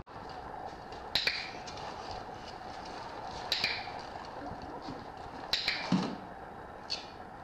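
A hand-held dog-training clicker clicking four times at irregular intervals: short, sharp clicks, several with a quick double snap, each marking the dog's behaviour in clicker training.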